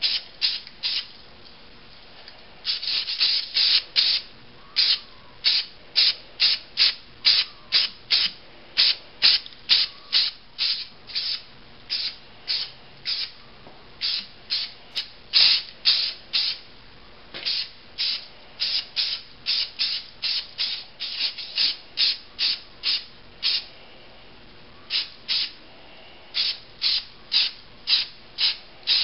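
Rust-Oleum primer sealer spray can hissing in short repeated bursts, about two a second with a couple of brief pauses, as a light mist coat of primer goes onto a Bondo-filled helmet.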